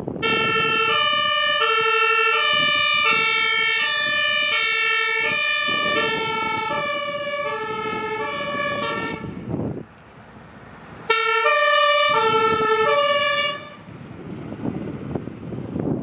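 German fire engine's two-tone Martinshorn siren, alternating steadily between a low and a high note about every half second, sounded as a horn salute on leaving the station. It stops about nine seconds in and sounds again briefly for two more cycles.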